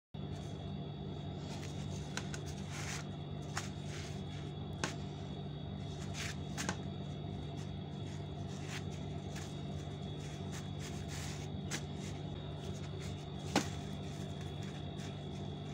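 Cooked rotis rustling and crinkling as fingers lift, bend and turn them over on a plate, in scattered short crackles with a sharper one near the end. A steady low hum with a thin high whine runs underneath.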